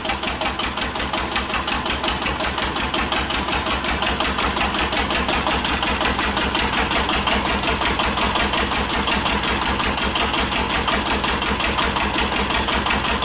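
A 1941 Witte CD 12 horsepower single-cylinder diesel engine driving its generator runs with a steady, rapid, even beat of firing strokes. The owner takes the engine to be well worn and its governing to suffer from backlash and slop in the governor linkage.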